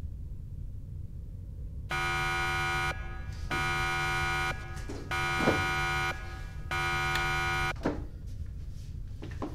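Electric door buzzer sounding four times in a row, each buzz about a second long with short gaps, over a steady low hum: someone is ringing at the entrance. A sharp knock falls during the third buzz, with a few softer knocks afterwards.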